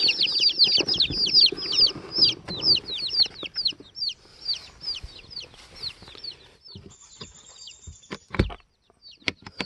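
Day-old Rhode Island Red chicks peeping in their shipping box: many quick, high, downward-sliding chirps overlapping, thinning out after about four seconds and dying away by about six. Near the end there is a single thump and then a few sharp clicks.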